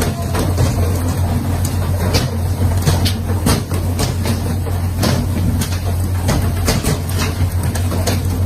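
A heavy engine running with a steady low hum, with irregular knocks and clatter throughout.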